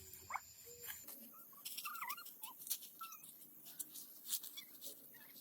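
Several short, high squeaks and chirps from a small animal, each gliding up or down, among scattered light clicks.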